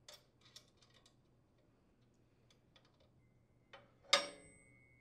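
Light metallic clicks and taps of bolts, washers and nuts being handled on a chipper shredder's impeller, then about four seconds in a sharper metal clank as the shredder blade knocks against the impeller, leaving a thin ringing tone.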